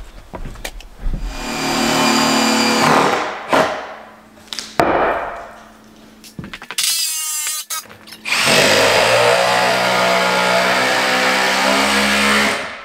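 Power tool running under load in two long spells of a few seconds each, with shorter bursts between and a brief rising whine in the middle, as lumber for a stud wall is worked.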